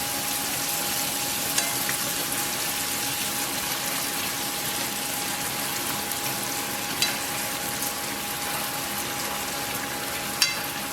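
Dough strips deep-frying in hot oil, a steady sizzling hiss, with a few sharp clicks and a faint steady hum underneath.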